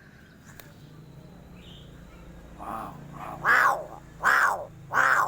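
Crow cawing: a couple of softer calls about halfway through, then three loud caws about three quarters of a second apart.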